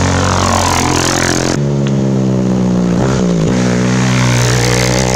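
Racing quad bike engines running hard at high revs as the quads accelerate along a dirt track. The sound switches abruptly to a second quad about one and a half seconds in. Its revs drop briefly and pick up again about three seconds in.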